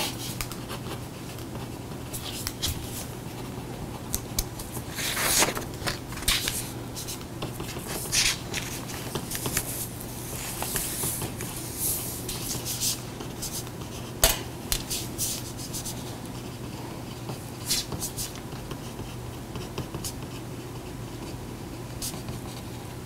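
Pen writing and scratching on paper on a table, with scattered paper rustles and light taps, one sharper tap partway through, over a steady low room hum.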